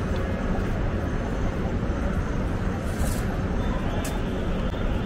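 Busy city street ambience: steady traffic noise, with a short hiss about three seconds in and a sharp click about a second later.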